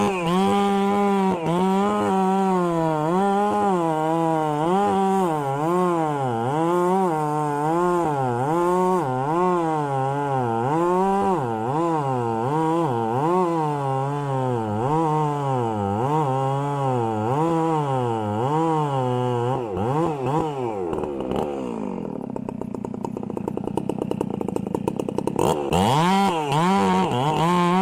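Chainsaw running at high revs while cutting wood, its pitch dipping and recovering about once a second as it works through the cut. About twenty seconds in the engine falls back to idle, then revs up again near the end.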